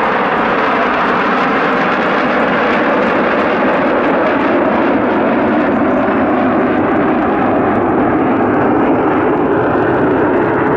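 Fighter jet flying past, its engine noise loud and steady throughout.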